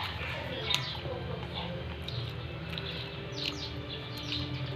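Birds chirping, with a quick run of short falling chirps about three and a half seconds in, over a steady low hum.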